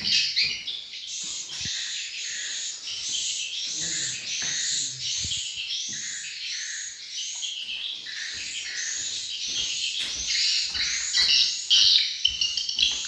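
Swiftlets chirping: an unbroken run of high, arched chirps, about two a second, the calls that draw birds to nest in a swiftlet house. Soft knocks from handling are heard between them.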